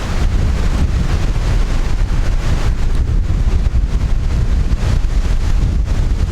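Strong wind buffeting the microphone: a loud, rough low rumble that swells and dips.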